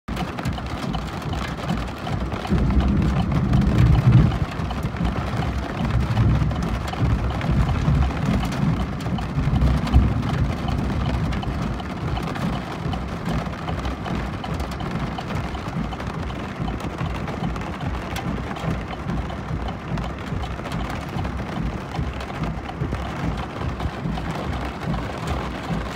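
Steady road noise inside a car driving a gravel road, with heavier deep rumbling from about three to ten seconds in.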